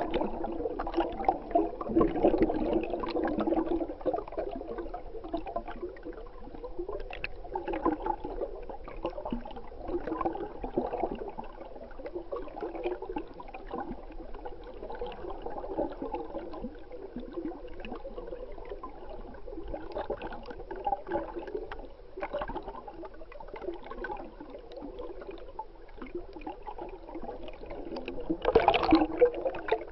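Flowing stream water gurgling, heard from a camera held underwater, with a louder surge near the end.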